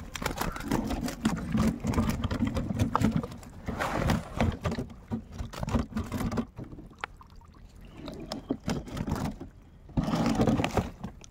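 Water splashing and sloshing with irregular knocks and handling noise. It is busiest in the first half and again near the end, with a quieter stretch in between.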